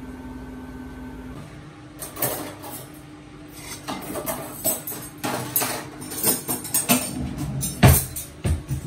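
Kitchen clatter: irregular clinks and knocks of dishes and a frying pan being handled, with one heavier knock near the end, after a steady appliance hum at the start.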